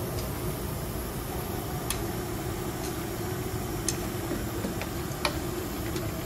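Long chopsticks clicking sharply against a steel wok a few times while stirring, over a steady hiss from the gas stove.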